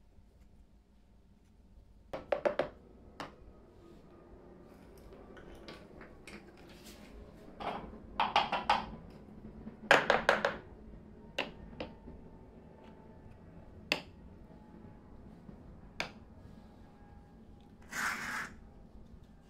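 Hard plastic toy tea-set pieces (cups, saucers, teapot) set down and moved on a hard tabletop: a series of light clacks and taps at irregular intervals, some in quick clusters, with a short scrape near the end.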